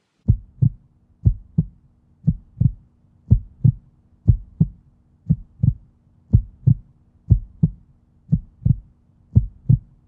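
Heartbeat sound effect: a steady lub-dub double thump about once a second, ten beats in all, over a faint low steady drone.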